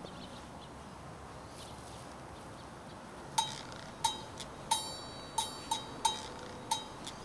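A quiet gap between songs on the soundtrack. Then, about three seconds in, a ringing bell-like percussion strike starts repeating in a steady beat, roughly three strikes every two seconds with a couple of extra off-beat hits, as the next song's intro.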